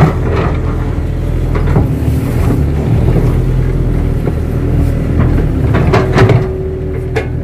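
Kato crawler excavator's diesel engine running steadily under load while it digs and moves soil, with several short metallic clanks from the working gear.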